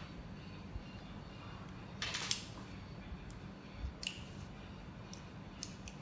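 Small magnets of a Polar Pen magnetic fidget pen clicking together as they are handled, with a cluster of clicks about two seconds in and a few single clicks later, over a faint steady hum.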